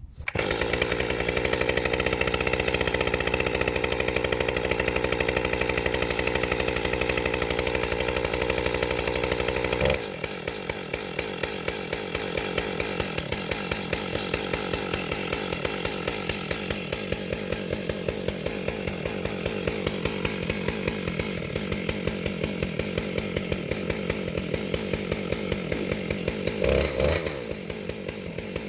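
Stihl 661C chainsaw with a 42-inch bar, running at high revs in a Granberg Alaskan chainsaw mill while ripping a log. It starts loud, drops abruptly about ten seconds in, and then runs on at a lower, rougher level.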